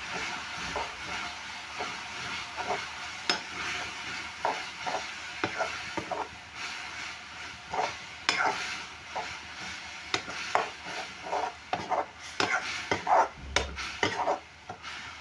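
Onion greens sizzling in hot oil in a pan, stirred and scraped in quick, irregular strokes that come thicker near the end.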